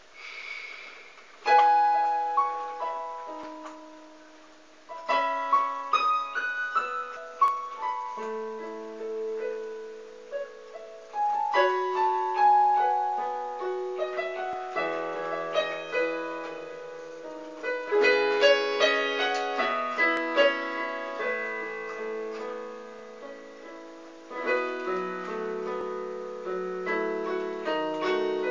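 Electronic keyboard on a piano sound, playing a melody over chords with the notes left to ring; the playing starts about a second and a half in.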